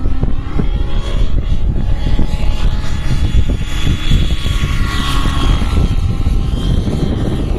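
Nitro Align T-Rex 700 RC helicopter's glow engine and rotors whining in flight over a heavy low rumble. The whine rises in pitch and then falls through the middle as it makes a low pass.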